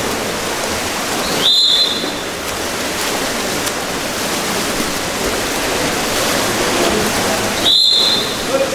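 Referee's whistle blown twice, about six seconds apart, each blast short and shrill, over a steady wash of splashing pool water.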